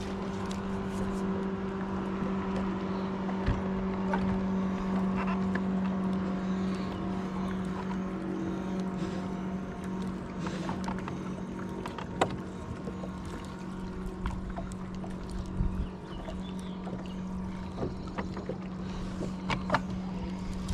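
Electric trolling motor on a bass boat running with a steady, even-pitched hum, with a few short sharp clicks here and there.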